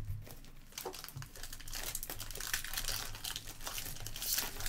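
Plastic wrapper of a Select basketball trading card pack crinkling and tearing as it is ripped open by hand. The crackling gets denser and louder from about two seconds in, peaking near the end.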